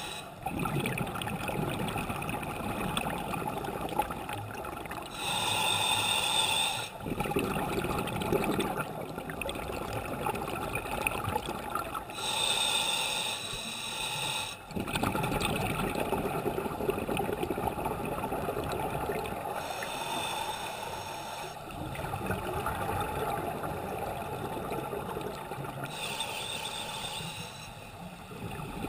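Scuba diver breathing through a regulator underwater: three long hissing inhalations several seconds apart, each followed by a rumbling, gurgling rush of exhaled bubbles.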